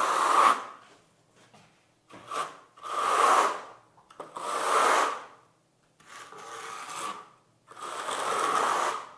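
Steel spatula scraping across fibreglass mesh in wet lime mortar, pressing the mesh down to embed it in the mortar. About six sweeping strokes, each roughly a second long, with short pauses between.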